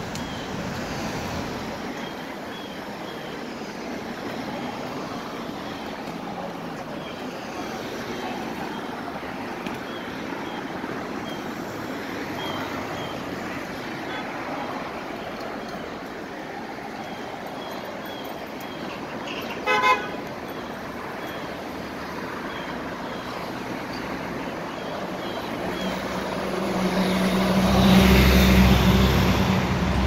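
City street traffic noise, with a short car horn toot about two-thirds of the way through. Near the end a large motor vehicle passes close by, its engine growing loud and then easing off.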